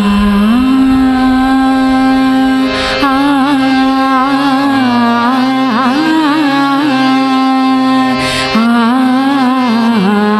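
Bhajan music starting: sustained notes held under an ornamented melodic line that bends and wavers in pitch, with two brief bright strikes about three and eight seconds in.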